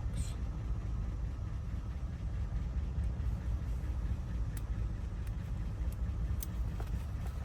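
A vehicle engine idling with a steady low rumble, and a few faint light clicks over it in the second half.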